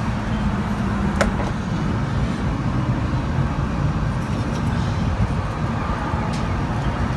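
Steady low rumble and hum of running machinery, with a sharp metallic click a little over a second in and a fainter click near the end.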